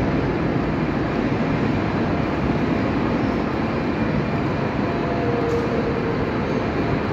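Steady rumbling ambience of a large railway station concourse, with trains running or idling at the platforms beyond.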